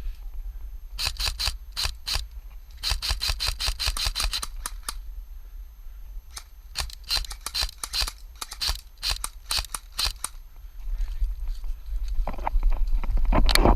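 Airsoft gun firing in quick strings of sharp, clicky shots, in three groups spread over the first ten seconds or so.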